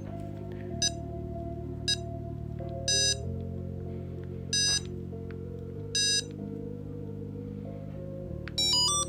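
A LoRa tracker's buzzer beeping Morse code as a single button is keyed: two short high-pitched beeps, then three longer ones, and another long beep near the end. Background music with slow sustained chords plays underneath.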